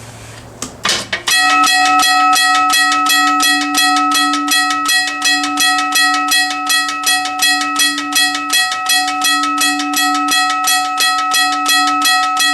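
US&S teardrop railroad crossing bell starting up: a few separate strikes a little under a second in, then a fast, even run of hammer strokes on the gong, several a second, with the bell's ringing tones sustained between strokes.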